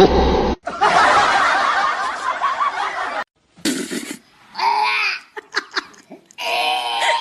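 People laughing for a couple of seconds, followed by a few short pitched calls.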